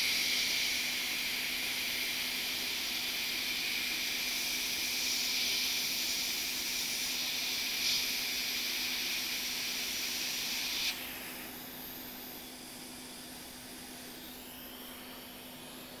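Hot air rework station blowing on a flux-covered chip on a MacBook logic board to melt its solder, a steady hiss that cuts off suddenly about eleven seconds in. A low steady hum continues underneath.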